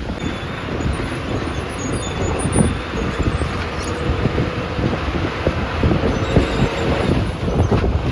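Bus on the move: engine and road rumble with many short rattles and knocks from the body as it drives.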